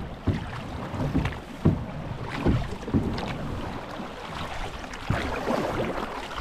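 A canoe and its paddles breaking through thin lake ice: a series of irregular sharp cracks and knocks over a crunching, scraping hiss as the ice gives way.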